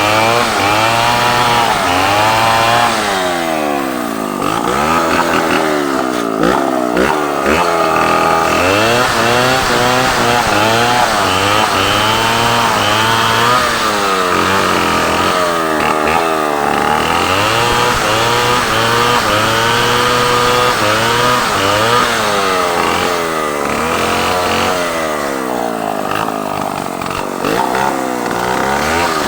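Two-stroke chainsaws running and cutting wood. Their engine pitch rises and falls over and over throughout.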